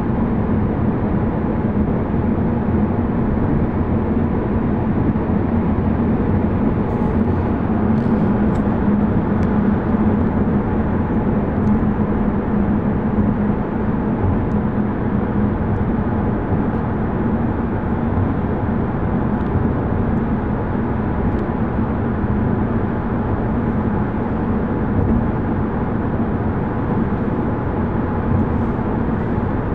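Steady road and engine noise of a car driving at speed through a road tunnel, heard from inside the cabin, with a constant low drone.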